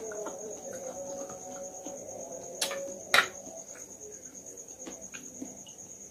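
Crickets chirping in a continuous high, finely pulsed trill. Two sharp knocks come a little past halfway.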